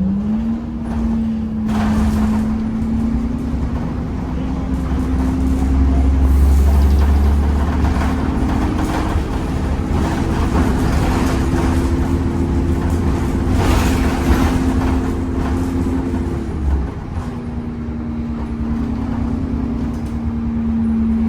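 Temsa Avenue LF 12 city bus with a DAF engine and ZF transmission driving, heard from on board: a steady whine rises slowly in pitch over the engine's low rumble, a second higher whine joins partway through, then both break off about sixteen seconds in and the whine settles back at a lower pitch.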